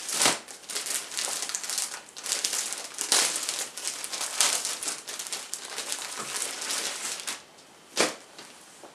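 Clear plastic bag crinkling and rustling in irregular bursts as a T-shirt is worked out of it. The rustling dies down about seven seconds in, and a single short sharp knock follows about a second later.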